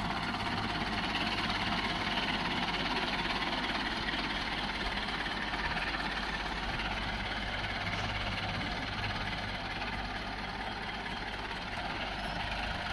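Diesel tractor engines running steadily as the tractors haul a trailer load of earth.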